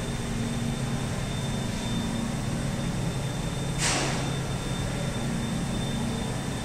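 Containerised incinerator machinery running with a steady low hum and a faint high whine. A brief hiss comes about four seconds in.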